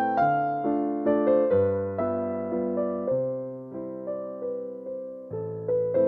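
Background music: a slow, gentle keyboard piece, electric piano or piano, with struck notes that fade away over a soft bass line.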